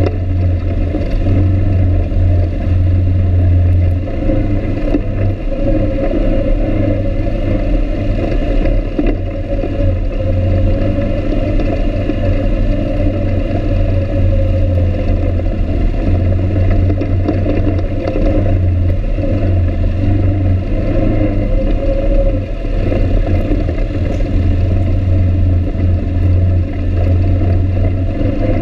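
ATV (quad) engine running continuously while riding a rough, rocky dirt trail, with a steady low rumble that swells slightly as the throttle changes.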